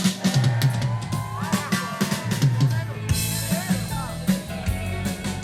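Band music: a drum kit keeps the beat over low bass notes, with a gliding melody line above, and cymbals come in strongly about three seconds in.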